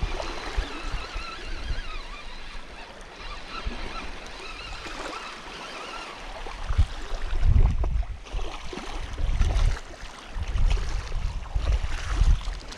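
Wind buffeting the microphone in gusts, heaviest in the second half, over small waves lapping at the shore.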